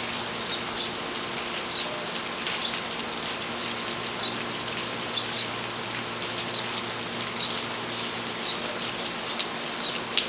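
Steady rain falling, a constant hiss with many irregular high-pitched drips and plinks of drops landing.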